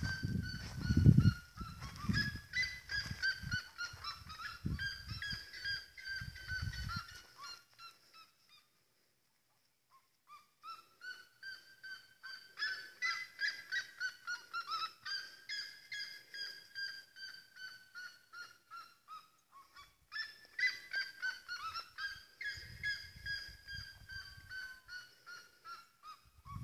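Red-legged seriemas calling: long runs of repeated yelping notes, about two to three a second. The calls come in three bouts, with a pause of a couple of seconds about a third of the way in and a short break later on.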